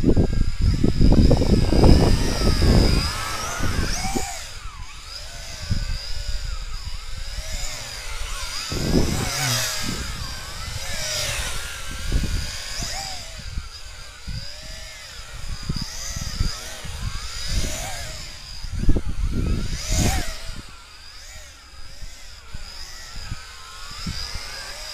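Tarantula X6 quadcopter's motors and propellers whining, the pitch rising and falling as it manoeuvres and passes overhead. Gusts of air buffet the microphone, loudest in the first few seconds.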